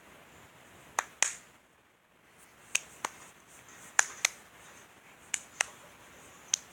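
Computer keyboard keys clicking in pairs, five double clicks spaced about a second apart: the clicking the title hears as 'bork bork'.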